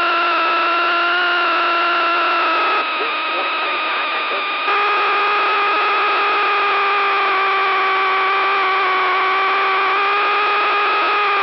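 Precipitation static in the C-130J's radio headset audio: a steady humming whine with several overtones, caused by static charge building up on the airframe in storm precipitation. It drops out briefly about three seconds in, then resumes.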